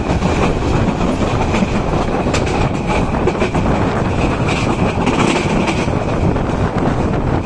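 Passenger train running on the rails, heard from an open door of a coach. A steady rumble from the wheels is broken by irregular clicks at the rail joints, with a thin high tone over it.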